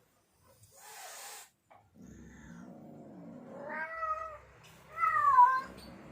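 Male cat in heat caterwauling, a mating call: after a low rumbling sound, two drawn-out wavering yowls about a second apart, the second louder.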